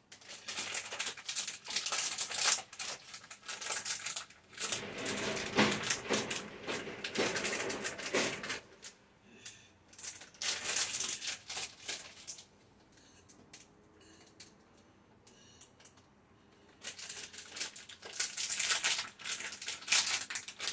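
Food-preparation noise at a kitchen counter: quick runs of tapping and clicking mixed with rustling. It comes in bursts, dies down for a few seconds past the middle, then starts again near the end.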